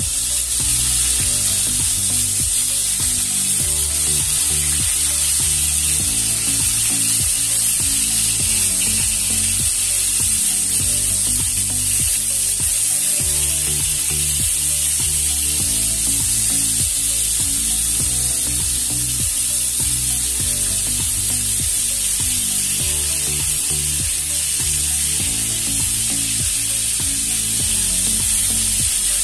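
Small whole brinjals frying in hot oil in a kadhai: a steady, loud sizzle, with background music underneath.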